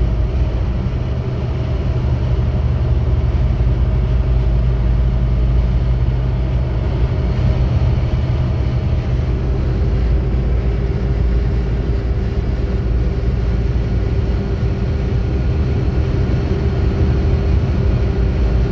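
Steady road noise heard from inside a vehicle travelling at motorway speed: a low rumble with tyre noise and a faint steady engine hum.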